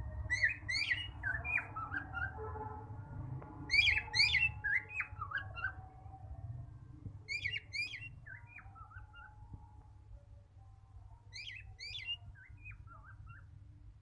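Male cockatiel whistling its song: four repeated phrases a few seconds apart, each a pair of sharp high whistles followed by a falling run of shorter notes, the later phrases fainter.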